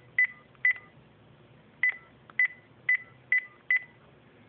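Touch-tone keypad beeps from a Panasonic KX-TGA031 DECT 6.0 cordless handset as keys are pressed during a call. There are two short tones, a pause of about a second, then five more in quick succession, the last for the hash key.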